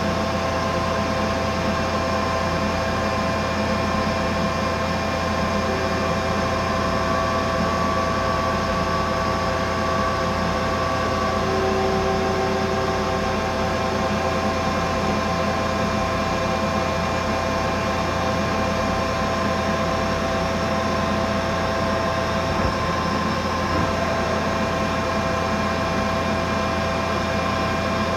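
Mazak Integrex multitasking CNC machine running while it finishes an aluminium part: a steady machine hum with several high steady tones from the spindle and cut. Some of these tones come and go partway through, and there are two faint clicks near the end.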